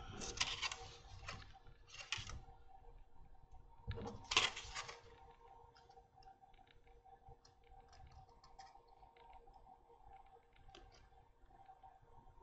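Handling noises from working on a small foam model-aircraft wing panel: three brief scraping rustles in the first five seconds, the loudest about four seconds in, then faint scattered clicks and taps over a steady faint hum.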